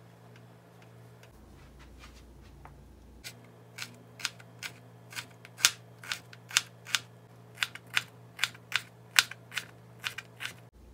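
Small kitchen knife chopping cucumber slices into thin sticks on a plastic cutting board: a run of sharp taps, about three a second, starting about three seconds in after a quiet stretch of handling.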